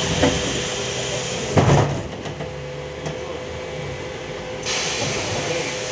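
Cabin noise of a LiAZ-5280 trolleybus on the move: a steady low rumble and hum with a hiss that fades about two seconds in and comes back near the end, and one sharp knock of the body about a second and a half in.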